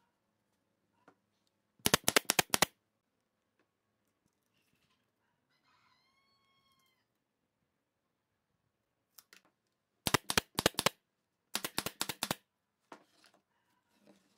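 Pneumatic brad nailer driving nails into pine, fired in three quick bursts of five or six shots each, about 2 s in and again about 10 and 12 s in.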